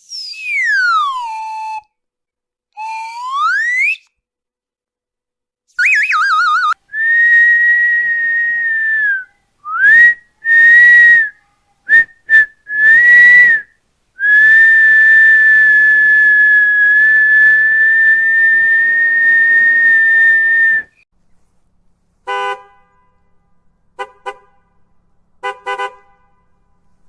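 A sequence of whistle sound effects: a whistle sliding down in pitch, then sliding up, a warbling trill, then steady whistle blasts, several short ones and one long held blast. Near the end come four short horn-like toots.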